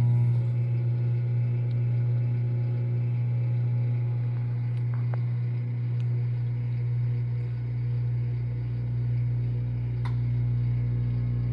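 Microwave oven running with a steady low hum while heating a marshmallow Peep, with a few faint ticks over it.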